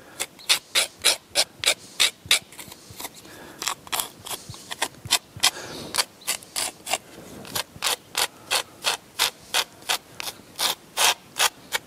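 Quick, short scraping strokes, about four a second, as a small silicone tool scrapes half-set exterior grout along the joints between cut limestone blocks.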